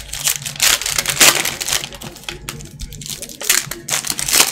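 Trading-card pack wrappers of foil and cellophane crinkling and tearing as packs are ripped open by hand, in irregular bursts, loudest about a second in and again near the end.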